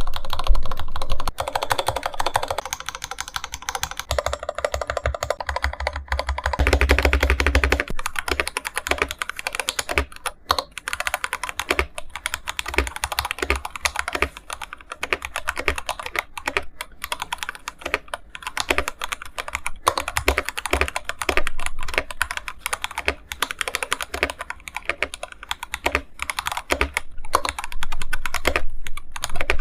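Stock IQUNIX F97 mechanical keyboard with TTC Gold Pink linear switches and Ducky keycaps being typed on continuously: a fast, uneven stream of keystroke clacks.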